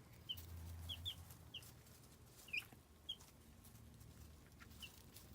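Young chicks, about two weeks old, peeping faintly: short high peeps, nine or so scattered through.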